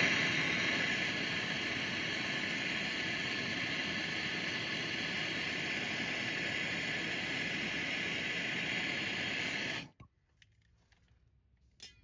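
Handheld gas torch flame burning with a steady hissing noise while heating a copper refrigerant line joint at a brass service valve for soldering; the noise cuts off suddenly near the end.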